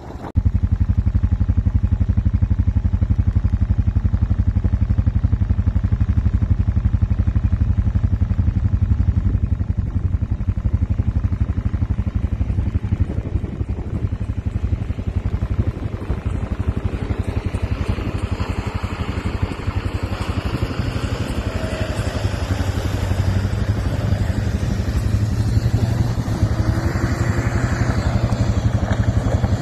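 A vehicle engine running with a steady low drone. About halfway through, a higher rushing noise joins it and grows louder towards the end.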